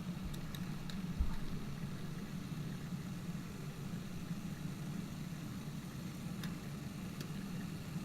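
Steam kettle running with a steady low hum, kept going to soften the plastic. A few faint clicks and one dull bump about a second in.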